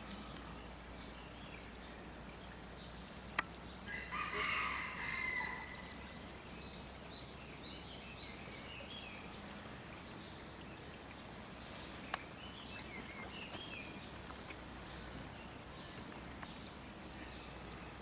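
Outdoor background noise with scattered bird chirps. A louder call lasts about a second and a half, starting about four seconds in. Two sharp clicks come before it and near the end of the second third.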